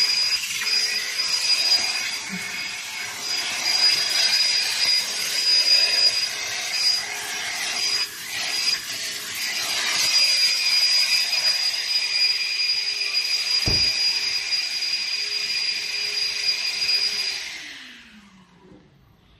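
Self-service car wash machine running with a steady hiss and a high whine, then switched off about eighteen seconds in, its motor winding down with a falling pitch.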